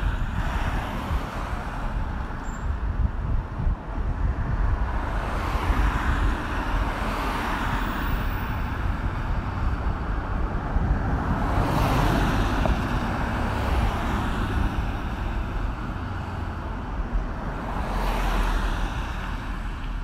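Traffic noise on a busy road: a constant rush of tyres and engines over a low rumble, with vehicles swelling louder as they pass, about every six seconds.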